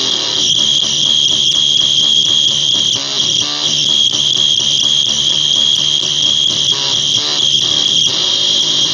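Drop D electric guitar played through a Basic Audio Pendulum pedal in oscillation mode, on its 'pissed off birds' setting, and out of a guitar amp. A loud, steady, high-pitched whine rides over the lower changing guitar notes.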